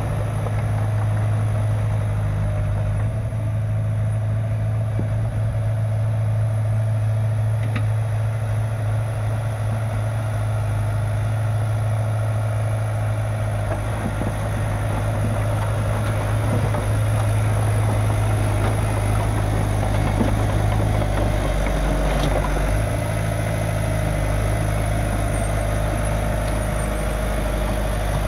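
Drott Komatsu D31-S crawler loader's diesel engine running steadily at idle, its low note shifting about three-quarters of the way through.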